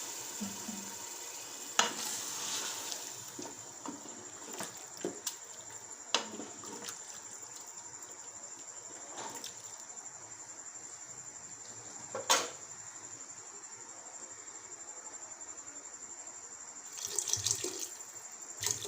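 Water being poured into a cooking pot of masala and chana dal, a steady hiss broken by a few sharp knocks of utensils on the pot, the loudest about two seconds and twelve seconds in.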